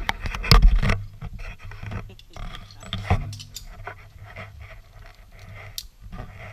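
Handling noise on a small action camera: irregular rubbing, scratching and knocking, loudest about half a second in, mixed with light clicks and clinks of harness gear.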